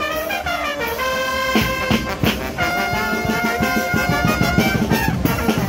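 Street brass band of trumpets and trombones playing a tune in held notes, with a steady beat underneath.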